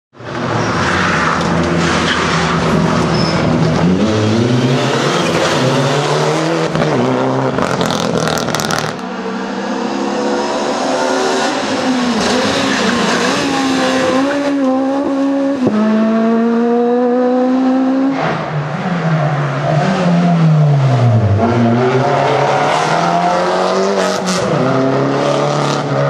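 Rally cars at full throttle, one after another in cut-together passes. Each engine note climbs through a gear, drops back at the shift and climbs again. Near the end, one note falls away and then rises again.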